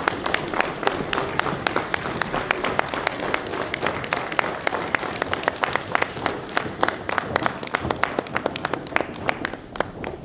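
Audience applause: a crowd clapping, with many sharp single claps standing out close by.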